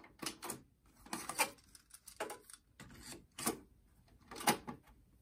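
Tascam 103 cassette deck being handled: the eject button pressed, the cassette door opening and a cassette worked in and out of the door. The sound is a string of separate plastic clicks and clunks, the loudest near the end.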